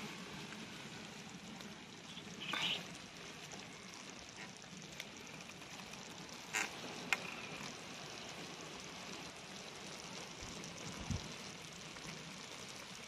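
Stew simmering in a clay tajine over a charcoal brazier: a steady soft hiss with a few brief pops.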